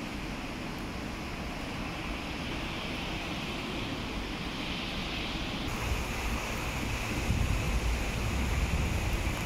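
Steady hiss of rain and wet road noise, with a low vehicle rumble growing louder in the second half.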